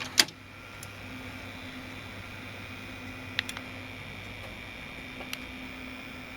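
Victor BR-6400 VHS deck's tape mechanism running with a steady hum and whine. A sharp click about a quarter second in is the loudest sound, with two lighter clicks around three and a half and five seconds in.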